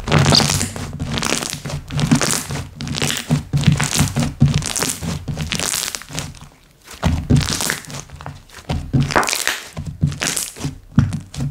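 Slime being squished, pressed and stretched by hand, giving irregular sticky clicks, pops and crackles, with a brief lull a little past halfway.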